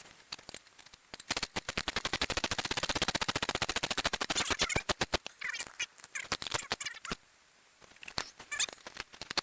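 Ratchet wrench clicking rapidly as a new sway bar link's nut is run down, with a long even run of clicks, then shorter bursts of clicks with a brief pause near the end.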